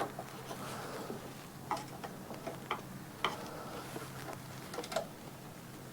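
Scattered small clicks and taps of hand tools and metal parts as a mower's throttle cable clamp is repositioned and tightened, with a few separate clicks about a second apart over a steady low hum.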